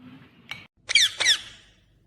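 Ringneck parakeet giving a short high note, then two quick, high-pitched falling squawks about a second in.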